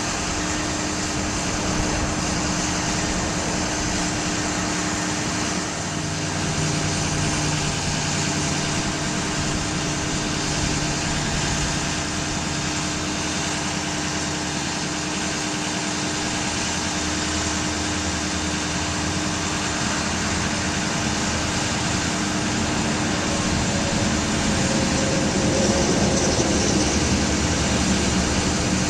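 Engine of a 2006 Ford F550 bucket truck running steadily, driving the hydraulics while the ETI aerial boom is moved. A continuous hum whose low tones shift about six seconds in, and which gets slightly louder with changing tones near the end.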